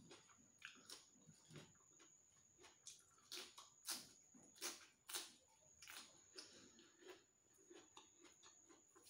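A person eating close to the microphone: faint chewing with irregular wet mouth clicks and smacks, a few louder ones around the middle.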